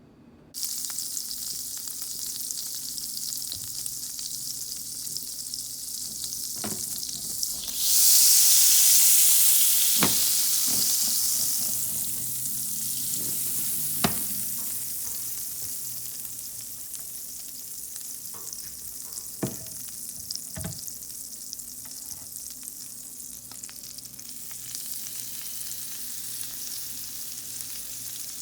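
Cauliflower frying in oil in a pan: a steady sizzle that swells loud about eight seconds in and then slowly dies down, with a few light knocks of a utensil against the pan.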